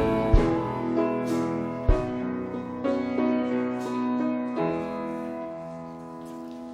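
Worship band keyboard playing slow chords with no singing, two low thumps under the first two chords, then settling on one held chord that slowly fades away at the end of the song.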